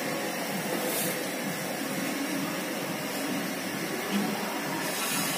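Steady hissing of deep-frying on the stove: a luchi frying in hot oil in an iron kadai.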